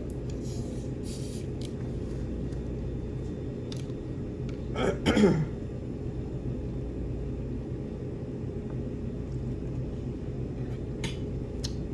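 Steady low room hum with a few faint clicks, and about five seconds in a short vocal sound falling in pitch, a sigh from a diner who has just eaten her fill.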